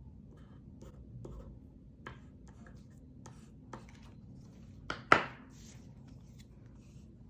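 Light taps, clicks and scratches of stationery being handled on a desk, with one sharp, much louder knock about five seconds in.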